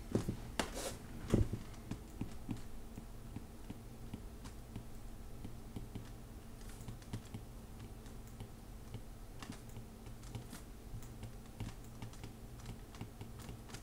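Faint, irregular taps and clicks of a stylus writing on a tablet screen, with a few sharper clicks in the first second and a half, over a low steady hum.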